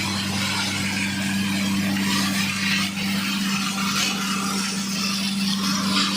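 Industrial plastic-scrap (PP/LD) washing machine running on its 15 hp electric motor: a steady motor hum with a rough, uneven hiss over it.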